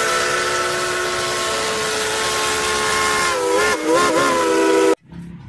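Steam locomotive whistle blowing one long chord over hissing steam. The pitch wavers and bends near the end, then the sound cuts off suddenly.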